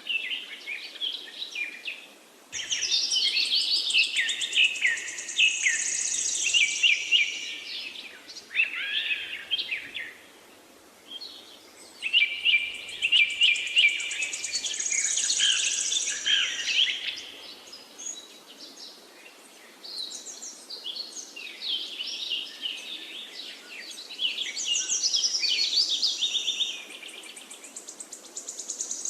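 Several forest songbirds singing and chirping with quick trills, in bursts of a few seconds with short lulls between, over a faint steady rush of a flowing river.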